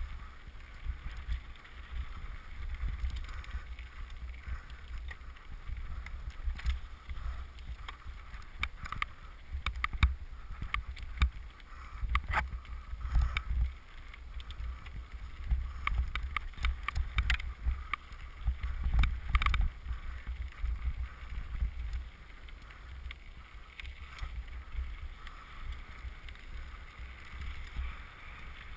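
Mountain bike (a 2007 Trek Top Fuel) riding fast down a gravel forest trail, heard through a GoPro on the bike: a constant low rumble of wind and trail vibration with frequent clattering knocks as the bike rattles over stones and bumps.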